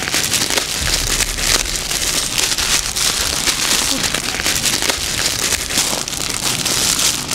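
Shiny red gift wrap crinkling and crackling as a wrapped present is opened by hand: a dense, unbroken crackle.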